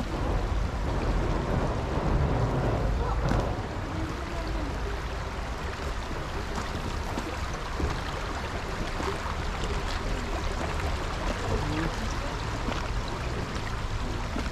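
Steady outdoor rumble and hiss, heaviest in the low end, with faint voices of people in the distance.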